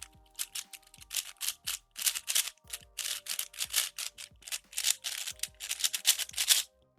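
MoYu AoChuang V6 5x5 speed cube being turned quickly: a rapid, irregular clatter of plastic layers clicking and snapping into place, which stops shortly before the end.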